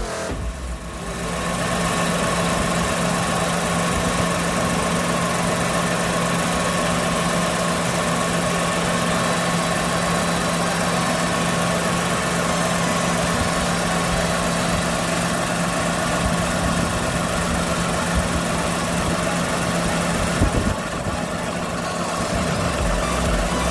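Small car engine idling steadily with a constant hum. The sound thins out briefly about half a second in and again near the end.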